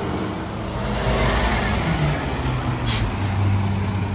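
International garbage truck's diesel engine running steadily, with a short hiss of air about three seconds in.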